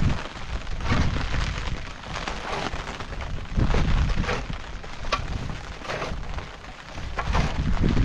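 A long-handled digging tool striking and scraping earth and stones on a cave floor in irregular strokes, over a loud, uneven low rumble.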